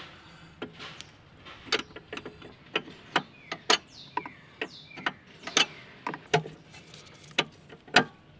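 Wrench working the flare nut of the hard line on a clutch master cylinder to loosen it: a string of sharp metallic clicks and clinks, irregularly spaced at about two a second.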